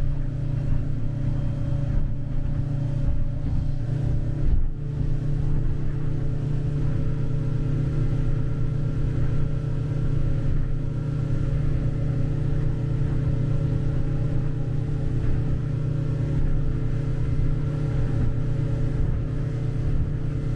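Boat engine running steadily at cruising speed: a deep, even drone with a steady higher hum over it, heard from inside the small pilothouse cabin.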